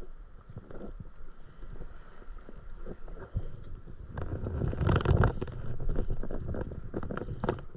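Wind on the microphone and water moving around a stand-up paddleboard: a low rumble that swells about halfway through, with scattered small knocks and clicks in the second half.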